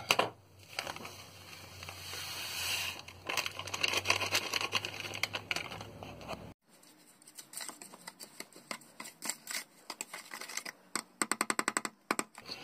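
Plastic gelatin packet crinkling as the powder is poured into a plastic cup of water. Then a metal spoon stirs the gelatin in the cup, with scattered scrapes and clinks and a quick run of rapid scraping clicks about a second before the end.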